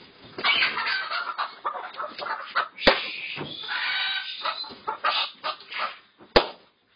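Layer hens making agitated calls in irregular bursts as they are caught and carried by the legs. Two sharp clicks cut through, about three seconds in and again near the end.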